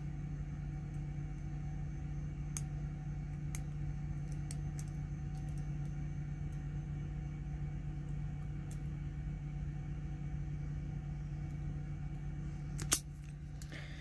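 Faint ticks of a lock pick working the pins of a brass padlock over a steady low hum, then one sharp click near the end as the lock gives.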